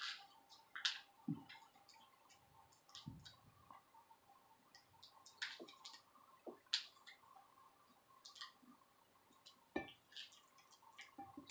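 Faint, scattered clicks and small handling noises as adhesive tape is worked over the display cable connector of a laptop LCD panel, over a faint steady hum.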